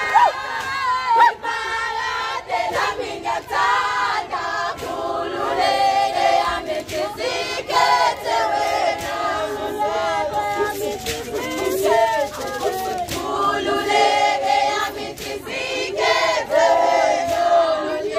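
A group of girls and young women singing a Zulu traditional song together, many voices at once.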